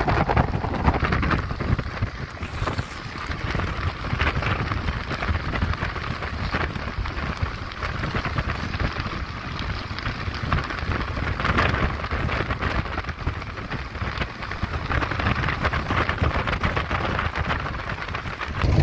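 Speedboat under way: a low engine and hull rumble under a crackling hiss of rushing, splashing water, with wind on the microphone.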